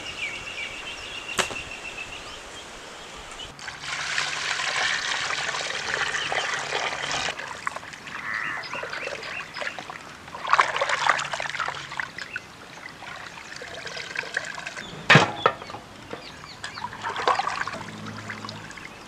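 Water sloshing and splashing in a metal pot as raw chicken pieces are washed by hand and lifted out dripping, in several bursts, with a sharp knock about three-quarters of the way through.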